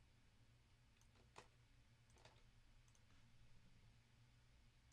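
Near silence: low room hum with a few faint, short clicks.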